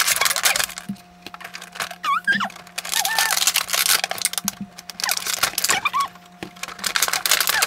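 Thin clear plastic blister tray crackling and crinkling as toy figures are pried out of it by hand, in several bouts of dense crackles with short pauses between.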